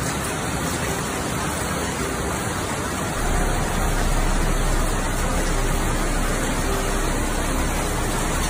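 Steady rushing noise of a severe thunderstorm, wind and rain, with a deeper rumble that strengthens about three seconds in.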